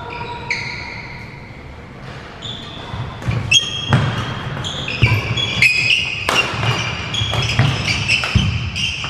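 Badminton rally: a racket hits the shuttlecock sharply several times, about once a second, starting about three seconds in. Between the hits, players' shoes squeak and thud on the wooden court floor.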